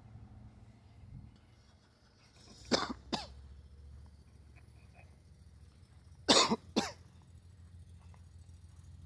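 A person coughing: two quick coughs about three seconds in, and two more just past six seconds, over a faint low rumble.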